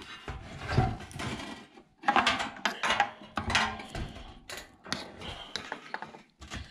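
A round Hella headlight being test-fitted into a trimmed sheet-metal headlight bucket: irregular clatter, knocks and scraping of the light against the cut metal as it is handled into place.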